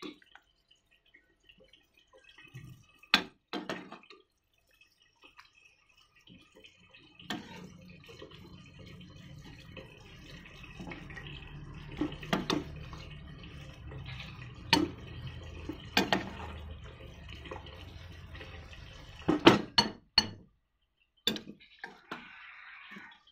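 A metal ladle knocking and clinking against a soup pot and a ceramic bowl as broth and greens are ladled out, with dripping and splashing of the broth. A steady low hum sets in about a third of the way in and stops near the end.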